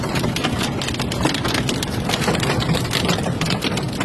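Heavy rain beating down on a hard surface: a dense, irregular clatter of hits over a steady low rumble.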